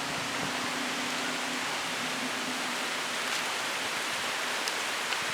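Steady rain falling, a dense even hiss of drops, with a few faint sharper drop ticks near the end.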